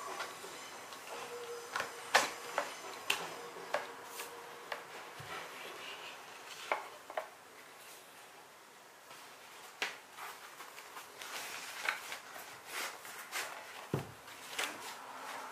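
Zempire Kitpac Spike bamboo folding table being handled and packed away: scattered clicks and knocks of its wooden boards and metal fittings, the loudest about two seconds in, with handling of its fabric carry bag near the end.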